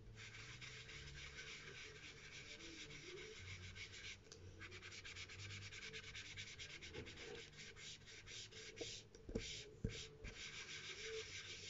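Blending brush scrubbed over paper in rapid strokes, rubbing ink into the paper, with brief pauses about four seconds in and again near the end.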